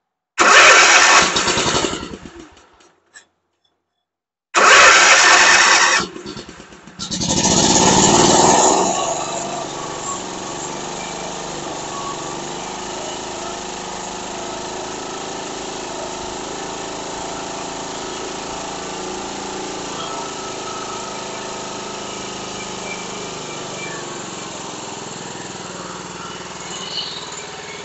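Kawasaki engine of a Toro TimeCutter zero-turn mower cranked on the key in two tries, catching about seven seconds in and settling into steady running. It runs on fresh gas gravity-fed from a separate tank, a test that isolates the no-start to bad fuel in the mower's own tank.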